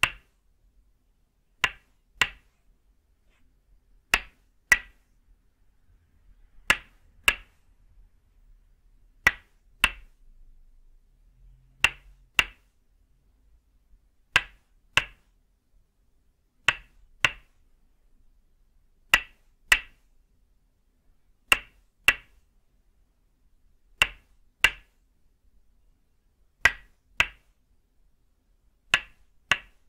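Tok sen wooden mallet striking a wooden peg held against a person's back: sharp wooden knocks in pairs about half a second apart, a pair about every two and a half seconds.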